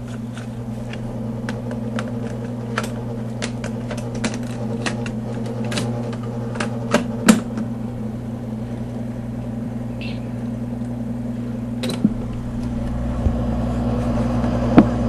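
Steady hum of the Singer Caramate II SP projector's motor running, with scattered sharp clicks and knocks from the cassette being handled and loaded into the built-in recorder.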